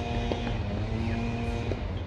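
Steady low rumble with a droning, engine-like hum that shifts in pitch partway through, and two faint knocks.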